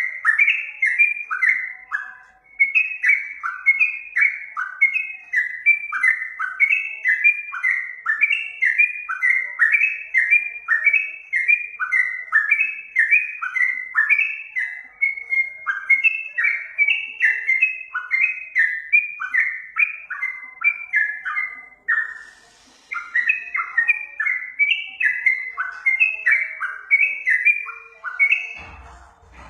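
Yellow-vented bulbul (trucukan) singing on and on in quick chattering phrases of short falling notes, several a second, with a brief pause about three-quarters of the way through.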